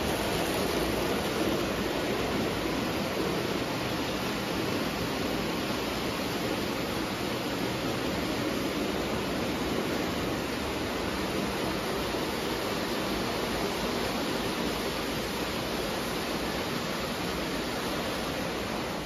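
Lionel O gauge steam locomotive and its cars running on three-rail metal track: a steady rushing rumble of the wheels on the rails.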